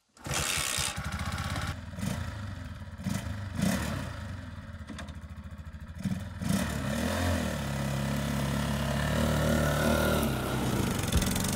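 Lifan 200cc four-stroke water-cooled engine of a ZID Barchan trike running, with a few uneven surges at first. From about six seconds in, the engine revs up as the trike pulls away and drives past.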